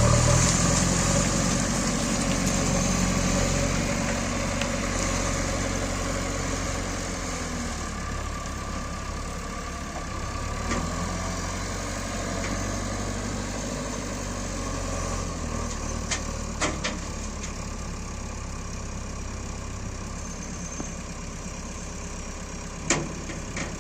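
Heavy diesel engine running steadily, easing down in level over the first several seconds. A few sharp knocks come about two-thirds of the way in, and one louder knock near the end.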